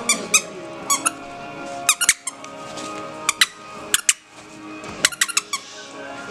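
Squeaky plush dog toy squeaking again and again as puppies play at it: short, high squeaks in quick clusters of two to four, with brief gaps between.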